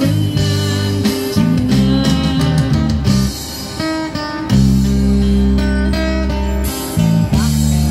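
Live band music from a small busking group: acoustic guitar, electric guitar and keyboard playing together, with long held low notes that change every second or two.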